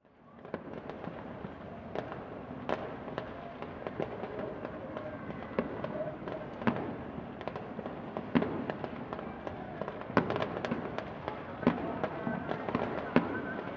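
Distant aerial fireworks over a city, many sharp pops and bangs at irregular intervals over a steady background of city noise, coming thickest near the end.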